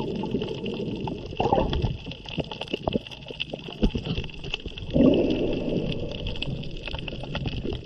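Underwater ambience picked up by a snorkeler's camera underwater: muffled water noise full of small crackles and clicks, with two louder rushing surges of water about one and a half seconds and five seconds in.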